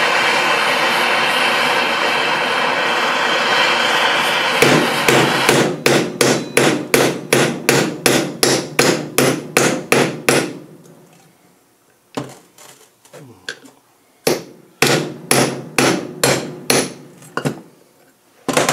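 Gas torch flame hissing steadily while it heats the pinion nut of a Land Rover differential to soften thread-locker. It stops about four and a half seconds in. A fast run of metal hammer blows follows at the pinion end, about three a second, then slower, quieter strikes.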